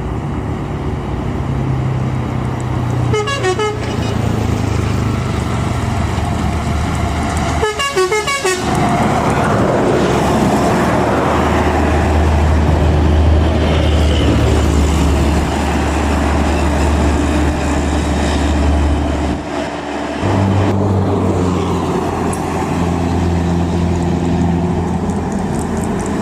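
Volvo B11R coach's diesel engine running and pulling, with two short bursts of a musical telolet horn about three and eight seconds in. The engine note briefly drops about twenty seconds in, then picks up again.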